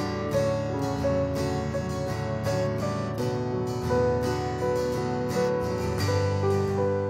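Worship band playing an instrumental passage: strummed acoustic guitar over sustained keyboard chords and a low bass line.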